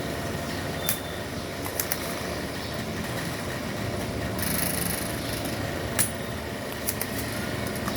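Steady machine hum with a few sharp clicks and a brief high hiss a little past the middle.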